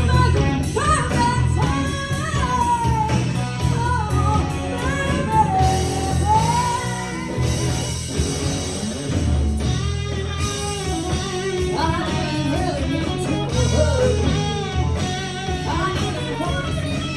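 Live rock band playing a song: guitar and a lead melody line that bends and glides in pitch, over a steady bass.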